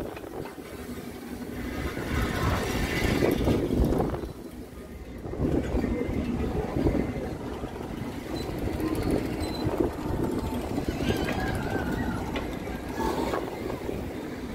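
Rumbling noise of a spinning Tornado fairground ride, heard from one of its tubs; it dips briefly about four seconds in.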